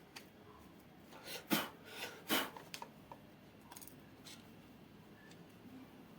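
Small tools and parts being handled during a bench repair: a few short scraping sounds about a second and a half in, and scattered light clicks.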